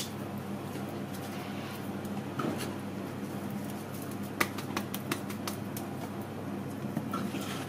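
Quiet handling of raw peppered duck breasts being laid into a plastic crate, with a few light clicks around the middle, over a steady low hum.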